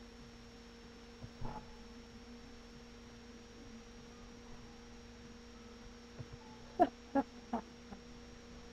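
Steady electrical hum with faint high and low tones. A few short sharp sounds come near the end, three in quick succession.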